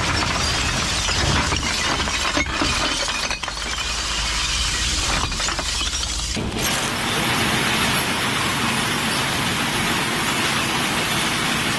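Glass bottles smashing at a bottle-recycling point: a dense, continuous clatter and crunch of breaking glass, changing abruptly in texture about six and a half seconds in.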